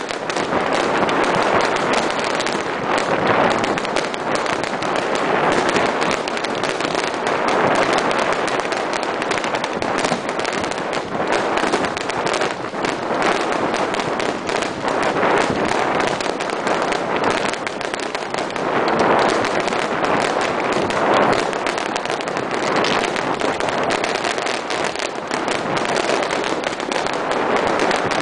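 Fireworks display going off: a dense, unbroken run of crackles and pops from many bursts.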